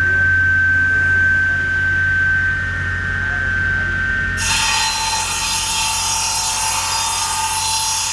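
Electric woodworking saw running with a steady whine and hum; about four seconds in the blade cuts into wood, a broad cutting noise starts and the whine drops lower under load, lasting to near the end. The saw runs very smoothly.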